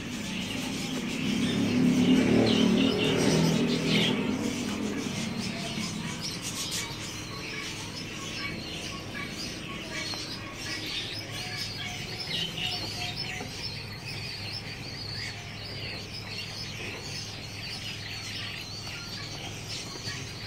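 Busy bird chatter around a backyard pigeon and chicken loft: many short high chirps throughout, with a louder, low warbling sound from about one to five seconds in.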